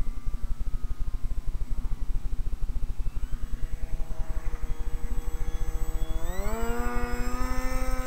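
Radio-controlled flying boat's motor whining. It eases off as the model settles onto the water, then is throttled up about six seconds in, the whine rising sharply in pitch and holding high as the boat speeds up across the water. A constant low fluttering rumble runs underneath.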